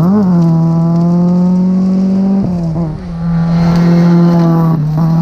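Rally car engine running at high, steady revs under full throttle. There is a brief rise in pitch just after the start, and short breaks in the note about two and a half seconds in and again near the end.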